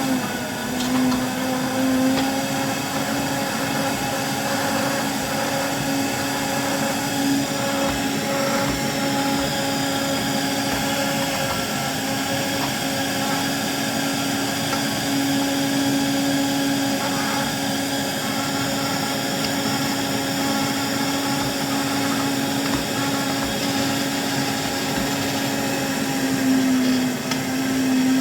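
A small electric motor runs steadily with a constant hum, and its pitch dips briefly near the start and again near the end.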